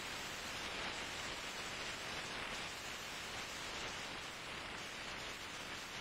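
Steady hissing rush of a dust storm heard from a moving vehicle, even and unbroken throughout.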